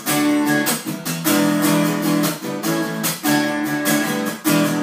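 Acoustic guitar strummed in a steady rhythm, playing chords as the introduction to a song.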